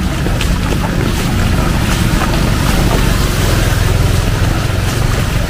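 Heavy rain pouring steadily, with a steady low rumble underneath and scattered sharp drips and splashes.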